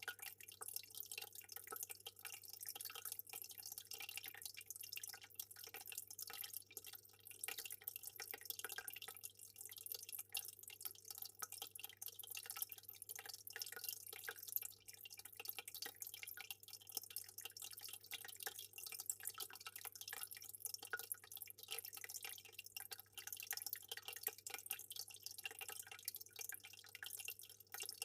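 Aquarium water trickling and dripping in a continuous dense patter of small splashes, over a steady low hum.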